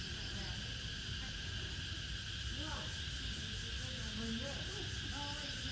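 Steady, unbroken high insect chorus, with faint voices murmuring underneath.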